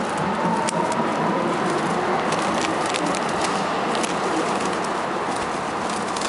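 Feral pigeons pecking and cooing at close range. Scattered sharp clicks sit over a steady rushing background noise.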